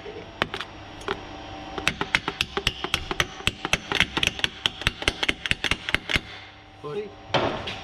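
Hand ratchet clicking rapidly while a fastener is wound in, in quick runs of several clicks a second, with a brief pause early on before the longest run.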